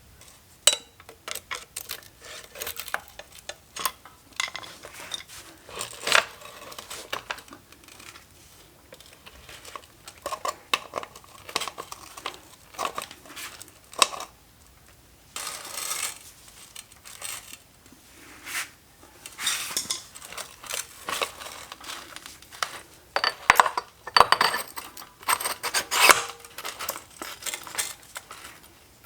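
Metal hand tools clinking, tapping and clattering at irregular intervals against a motorcycle wheel, with sharp clicks. They come thicker and louder a few seconds before the end.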